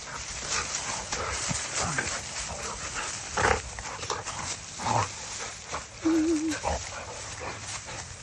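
Two dogs vocalising in rough play, with short barks and yelps and a brief wavering whine about six seconds in.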